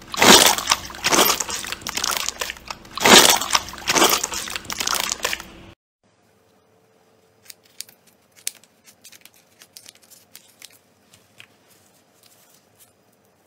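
Hands pressing and kneading clear slime, with loud crackling squelches in repeated pushes about a second apart. About six seconds in these stop abruptly. After that only faint, scattered little squishy clicks follow, as a glove-shaped slime toy is squeezed.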